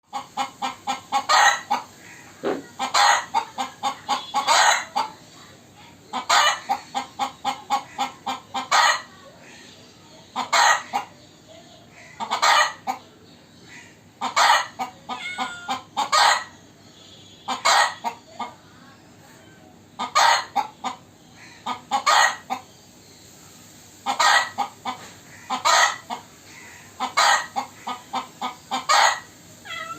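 Chicken calling in short, loud clucks that come in quick groups, each group building to a louder call, repeating about every two seconds.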